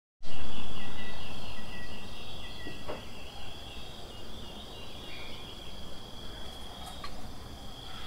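Insects trilling steadily in one high, even tone, pulsing over the first couple of seconds. Under it is a low rumble, loudest at the start and fading over about three seconds.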